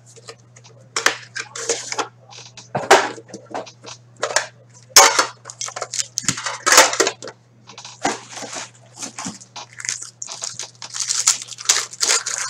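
Cardboard and foil packaging being handled and opened by hand: a trading card box slid open and a foil-wrapped card pack worked loose, giving irregular rustling, scraping and crinkling. A low steady hum runs underneath.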